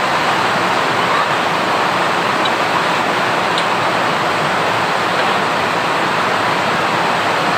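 Loud steady rushing hiss that stays even throughout, with a couple of faint ticks.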